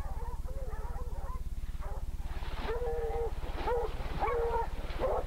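Dogs barking at a bayed wild hog: faint, scattered barking at first, then from about halfway in a string of loud repeated barks about every half second. A steady low hum runs underneath.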